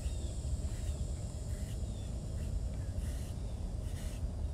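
Outdoor ambience: a low steady rumble with faint short bird chirps repeating every second or so over a steady high insect drone.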